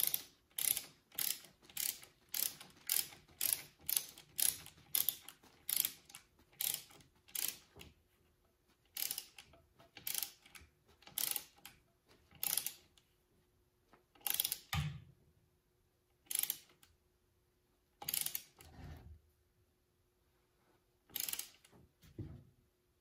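Ratchet wrench clicking in short bursts as it tightens the low-reverse band adjuster of a Mopar 904 automatic transmission toward 72 inch-pounds. The strokes come about twice a second at first, then slow to single strokes with longer pauses after about eight seconds.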